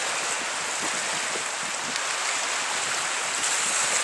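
Fast-flowing flood water rushing past, a steady hiss with no pauses.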